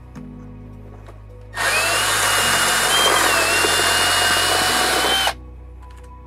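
Milwaukee cordless drill running for about four seconds with a steady whine, drilling out a screw hole with an 1/8-inch bit through a piece of metal in the RV ceiling. It starts about one and a half seconds in and stops abruptly.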